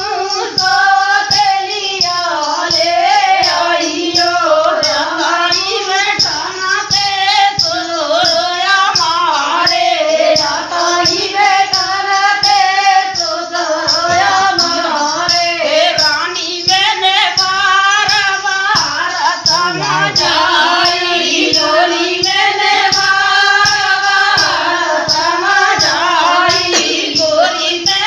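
Women singing a rustic Hindi folk dance song together in chorus, with a steady, regular percussion beat under the singing.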